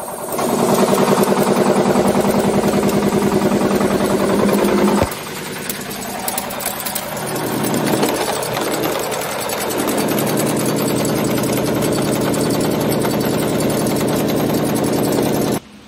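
X130B wire nail-making machine running at speed, cutting and heading 8 cm construction nails from 3.50 mm wire, with a rapid, even mechanical clatter. It drops in level about five seconds in, then runs steadily and cuts off suddenly near the end.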